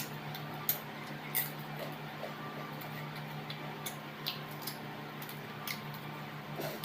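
Eating noises: irregular small clicks and smacks of chewing and mouth sounds, over a steady low hum.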